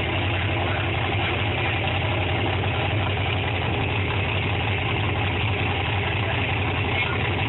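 Engine idling steadily, with no revving or change in speed.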